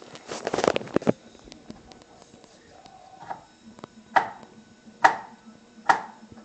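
Kitchen knife chopping through a wood duck's wing on a plastic cutting board. There is a quick cluster of knocks in the first second, then three sharp knocks about a second apart near the end as the blade strikes the board.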